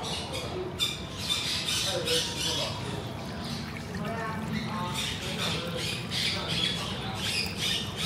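Many pet birds squawking and chirping, a constant stream of short, overlapping high-pitched calls.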